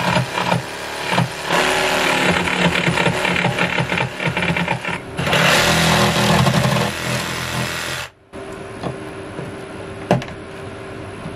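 Cordless jigsaw cutting a round hole through a wooden panel, its blade chattering rapidly. It pauses briefly about five seconds in and cuts off at about eight seconds. A single sharp knock follows near the end as a plastic vent is pressed into the hole.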